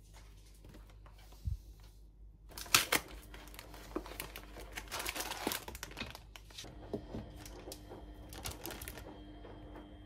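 Packaging of frozen spring rolls being handled: the plastic bag crinkling and rustling, with many light clicks and taps as the frozen rolls are set down on a baking-paper-lined tray. The loudest crackles come about three seconds in.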